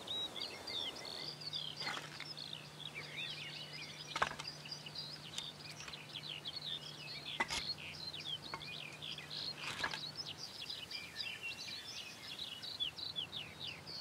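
Faint outdoor birdsong: many small birds chirping and trilling in rapid short notes, with a few soft clicks and a faint low hum that stops about ten seconds in.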